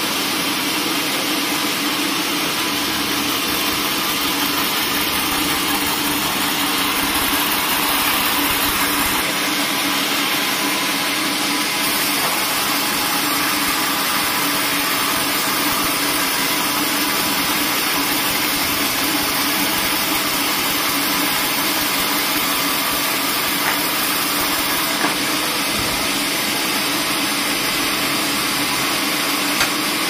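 Horizontal band sawmill running steadily: the even noise of its drive and band blade with a constant low hum, the blade cutting lengthwise through a squared timber. A couple of small knocks near the end.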